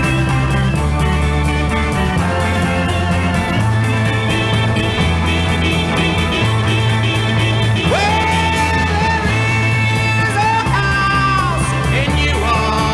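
Rock band playing a slow minor-key chord progression on arpeggiated electric guitar, electric organ, bass guitar and drums, the bass stepping through the chords. About eight seconds in, a male singer comes in with a long, held, wavering note that opens the final verse.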